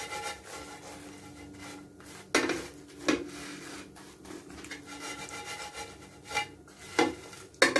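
A spatula stirring and scraping through dried anchovies in a frying pan, the dry little fish rustling against the pan, with a few sharp knocks of the spatula on the pan.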